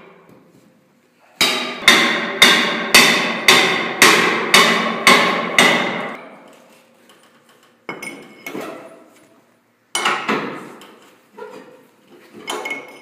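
Flat-head axe striking the end of a Halligan bar, metal on metal: nine ringing blows about two a second, then a few lighter, scattered blows. The strikes drive the bar's adz into the gap behind an outward-swinging door to get a purchase for prying.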